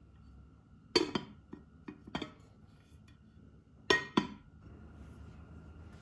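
Ceramic plate clinking against the rim of a glass bowl as it is set down as a lid: a quick cluster of clinks and taps, then two sharper clinks about three seconds later.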